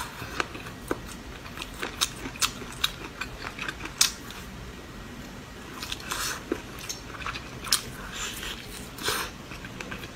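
Close-up eating sounds of braised pork ribs: biting and chewing the meat off the bone, heard as many sharp, irregular mouth clicks.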